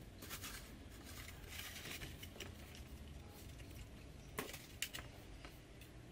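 Faint rustling and light scraping of a balsa wood wing being pressed and handled on a building board, with two sharp taps about half a second apart a little past four seconds in.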